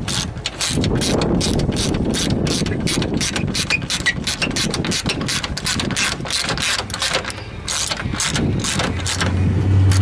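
Socket ratchet clicking rapidly, several clicks a second, as it is worked back and forth to run down a 10 mm bolt. A low steady hum comes in near the end.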